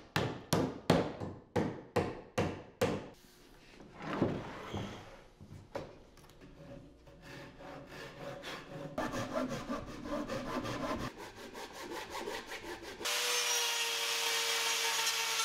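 Mallet striking a chisel about twice a second, seven blows, cutting into the hole of a wooden mast partner. Then hand chisel strokes paring and scraping the wood of the hole. About thirteen seconds in an angle grinder cuts in and runs steadily against the wood, the loudest sound.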